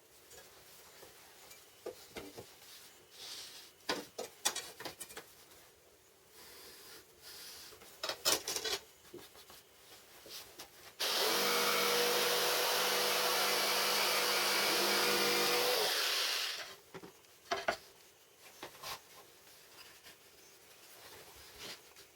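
Workshop handling noises, with scattered clicks and knocks, then a small power tool's motor running steadily for about five seconds, starting abruptly and then winding down.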